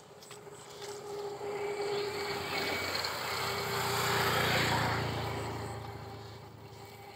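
A passing engine, swelling in loudness over several seconds to a peak about four and a half seconds in, then fading away.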